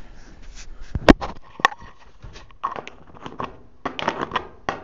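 Handling noise of small tools and parts: scattered clicks and knocks, with a sharp knock about a second in and another half a second later, then quicker clusters of light clicks.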